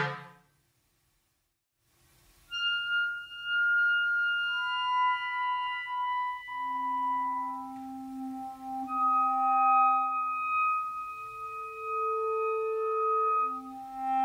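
Two clarinets, one in B♭ and one in A, playing a contemporary duet: a loud passage cuts off right at the start, there is a second or so of silence, then about two seconds in the next movement opens with long, soft held notes that overlap and change pitch slowly, sounding almost like pure tones.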